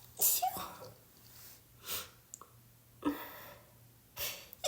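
A person with a head cold sniffing and taking sharp, noisy breaths: about five short bursts, the loudest near the start and about three seconds in.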